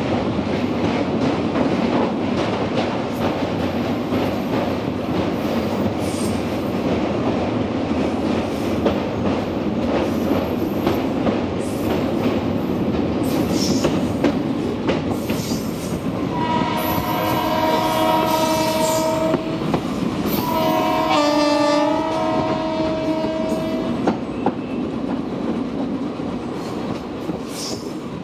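Passenger train running over a steel truss bridge, heard from the coach: a dense, steady rumble and clatter of wheels on the steel span. Just past halfway a locomotive horn sounds in two long blasts, one after the other.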